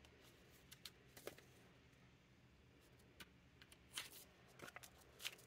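Near silence broken by faint, scattered rustles and flicks of paper banknotes being counted and handled, a little busier near the end.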